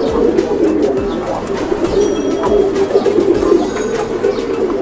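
Many caged domestic pigeons cooing at once: a dense, steady chorus of overlapping coos.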